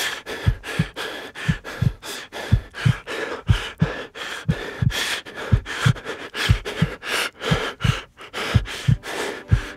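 Heartbeat sound effect, low lub-dub double thumps about once a second, under fast, ragged heavy breathing.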